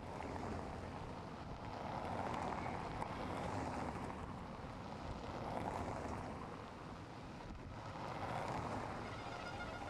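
Race convoy of team cars and bicycles going by on a cobblestone road, with tyres rumbling over the cobbles. The noise swells three times as cars pass close by.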